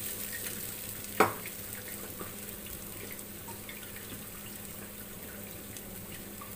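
Ground green-pea paste frying in mustard oil in a kadhai, a steady sizzle with scattered small crackles. About a second in, the metal spoon knocks once against the pan.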